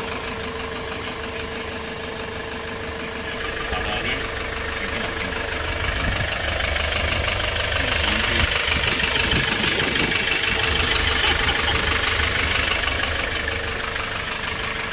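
Hyundai Porter II's diesel engine idling steadily with a light clatter, growing louder for several seconds in the middle.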